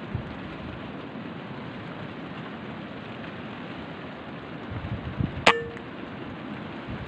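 Steady rain hiss. About five and a half seconds in there is one sharp, loud crack with a brief ring after it, and a few soft low thumps just before.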